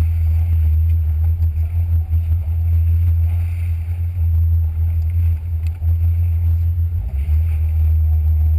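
Jet ski engine running at speed while towing a rider behind it: a loud, steady low drone, mixed with wind buffeting on the microphone.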